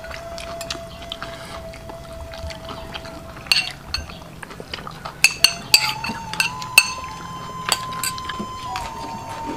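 Spoon and plate clinking a few times during a meal, sharpest in a cluster past the middle, over a steady thin whine whose pitch steps up about two-thirds of the way in.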